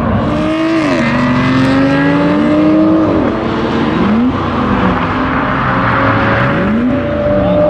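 Two hypercars accelerating hard side by side, one of them a Bugatti Veyron with its quad-turbo 8-litre W16. The engine note climbs through each gear and drops back at each of several upshifts.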